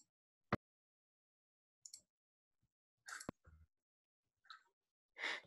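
Near silence on a video call, broken by a few brief clicks: one sharp click about half a second in, another a little after three seconds, and some fainter blips.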